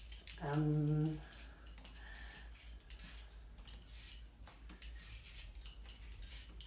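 Raw potatoes being peeled by hand with vegetable peelers: many short, quick scraping strokes of the blades across the skins. A brief voice sound about half a second in is the loudest moment.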